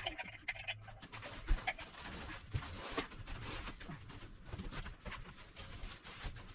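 Young chickens (chicks) calling, with scattered short knocks and rustling.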